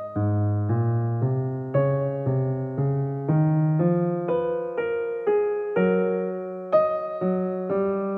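Background music: a keyboard playing a slow, gentle melody, about two notes a second, each note struck and fading.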